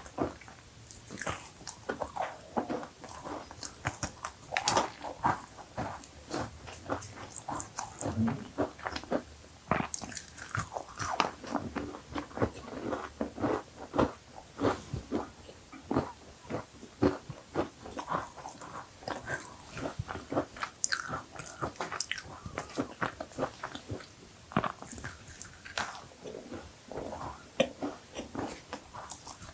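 Close-miked chewing and crunching of cookies: a steady run of irregular crisp crackles and soft wet chews as a person bites and eats.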